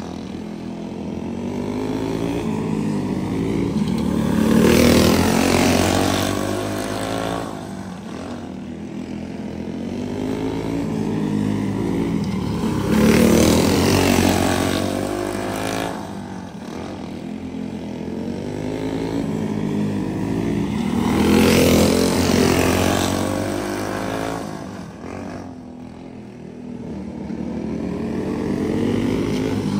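Race karts' small engines running hard at racing speed around a short oval, the pitch rising and falling as the pack comes past about three times, once every eight to nine seconds, and fading between passes.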